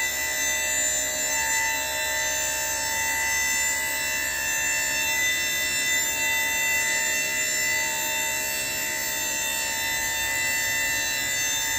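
Electric-hydraulic hoist pump of a Monroe dump body running with a steady, even whine as it raises the loaded-free stainless steel dump box.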